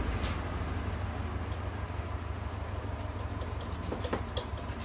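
Steady low background hum. About four seconds in, a few faint ticks come as the oil-paint brush touches the canvas.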